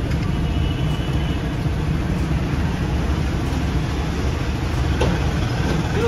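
Steady low rumble of background noise with a single light knock about five seconds in, as a tyre is handled on a tyre-changing machine.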